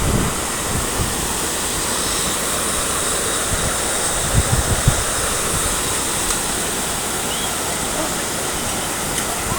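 Waterfall rushing, a steady, full noise of falling water, with a few brief low thumps about four to five seconds in.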